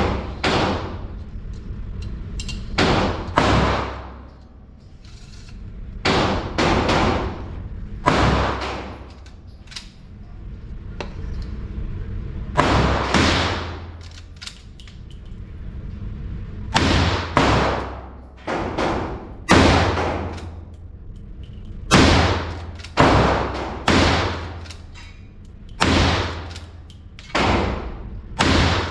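Repeated rifle shots from a Henry .22 Magnum lever-action rifle, fired at a measured pace in clusters of two or three, each crack followed by an echoing tail inside an indoor range.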